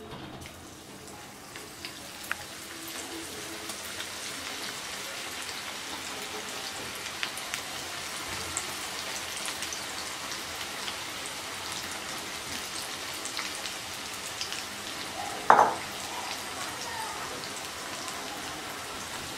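Batter-coated cauliflower florets deep-frying in hot oil: a steady sizzle with many small crackling pops, building up over the first few seconds as the pieces go in. One brief louder knock about three-quarters of the way through.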